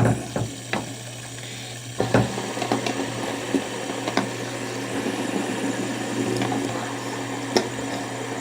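Several fidget spinners flicked into spin, with a few clicks in the first two seconds, then the steady whir of their spinning bearings.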